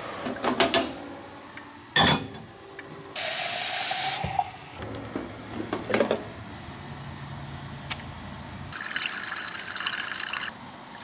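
Commercial drip coffee brewer being loaded: clicks and knocks as the brew basket is handled, a loud hiss about three seconds in, then a low hum and coffee running from the basket into the carafe.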